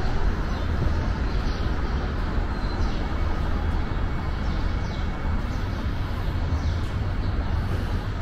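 Steady station ambience with a strong low rumble, and a few faint, short high chirps now and then.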